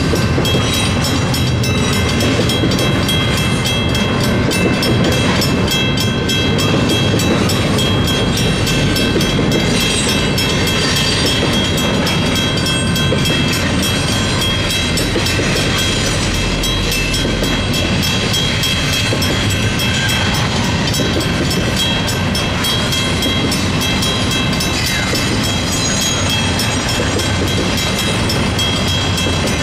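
Union Pacific double-stack intermodal freight cars rolling steadily past, with wheels rumbling and clattering over the rails. A WCH mechanical crossing bell keeps ringing over the train noise.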